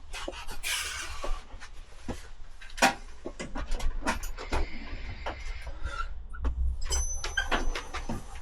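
Metal spanners clinking and clattering as hand tools are rummaged through and picked up: a string of clicks and knocks, with a brief rustle about a second in and a couple of short high metallic rings near the end.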